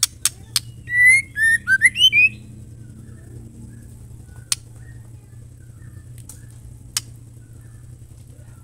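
Female white-rumped shama giving a short loud run of quick whistled notes about a second in. A few single sharp clicks come before and after it.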